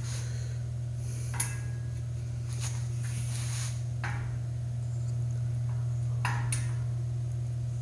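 Shocker manual rotary screen printing press being turned, giving about half a dozen irregular metallic clicks and knocks: the press is hitting somewhere in its rotation, a spot the owner cannot locate. A steady low hum runs underneath.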